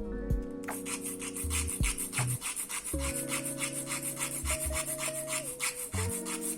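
Quick, even rasping strokes of a small file on a keyboard switch's metal connector pins, several strokes a second, thinning the pins so the switch fits.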